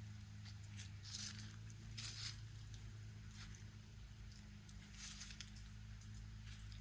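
A person's footsteps walking at an easy pace, about one step a second, each a short scuffing stroke. A steady low hum runs underneath.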